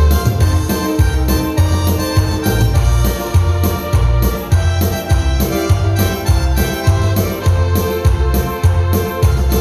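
Instrumental break of a live worship song: an electric keyboard playing chords over a steady, repeating bass beat.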